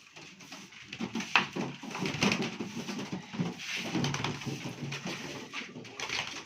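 Irregular scraping, knocking and rustling as a bird coop is cleaned, with birds calling among it.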